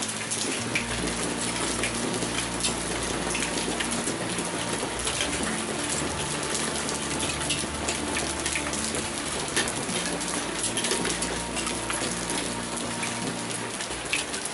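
Heavy rain pouring steadily during a thunderstorm, with many sharp ticks of drops striking hard surfaces.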